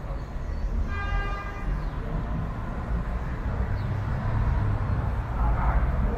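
Steady rumble of city street traffic, with a vehicle horn sounding once, briefly, about a second in.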